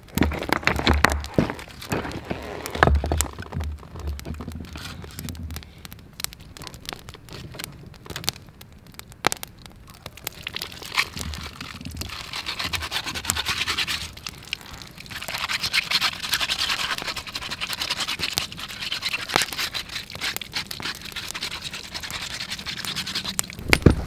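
Campfire crackling with scattered sharp pops; from about ten seconds in, a denser rasping noise sits over it.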